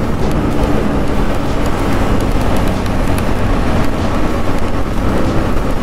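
Motorcycle riding along a road at speed: the engine running under way, mixed with steady wind and road noise on a helmet-mounted microphone.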